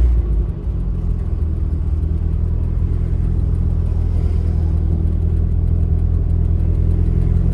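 Turbocharged Mazda Miata's four-cylinder engine running while driving, heard from the open-top cabin with road and wind noise. The engine note drops just at the start, then holds a steady drone that builds slightly toward the end.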